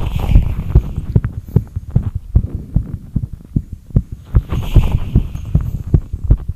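A fast human heartbeat picked up by a phone's microphone held against the chest: a quick, steady run of low thuds. A soft hiss comes in briefly about four and a half seconds in.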